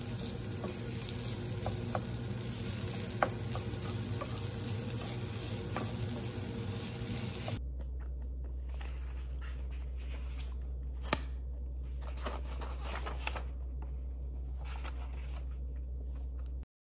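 Food sizzling in a frying pan, a dense steady crackle with occasional light utensil clicks. A little past halfway it cuts abruptly to a quieter, sparser crackle over a low steady hum, with one sharp tap a few seconds later.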